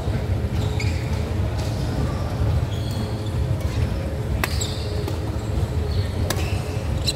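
Badminton rally: a few sharp racket hits on the shuttlecock in the second half, with short shoe squeaks on the court floor, over a steady low hum.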